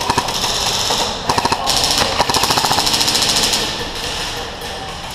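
Electric airsoft rifle firing on full auto: a short burst about a second in, then a longer burst of about two seconds, a rapid, even rattle of shots.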